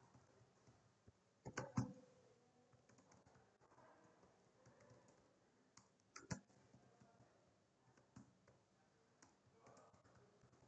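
Faint typing on a computer keyboard: scattered key clicks, with a few louder strokes about one and a half seconds in and again about six seconds in.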